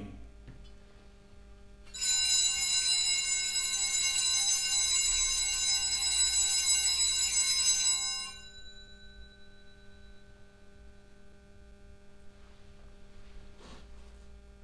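Altar bells (sanctus bells) rung steadily for about six seconds, then stopped, with a few lower tones hanging on faintly. The ringing marks the elevation of the chalice just after its consecration at Mass.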